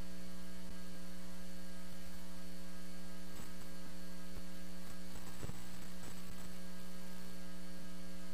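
Steady electrical mains hum with no speech, a constant buzzing tone that does not change.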